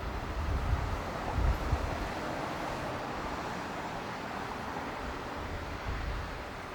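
Jet engines of a landing Boeing RC-135S, a steady rush. Wind buffets the microphone with low rumbles in the first second and a half.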